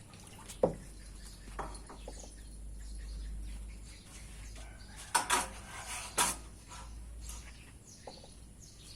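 A few sharp knocks and clinks of a pet-food container and bowl being handled. One comes about half a second in, another after a second and a half, and a cluster comes near the middle.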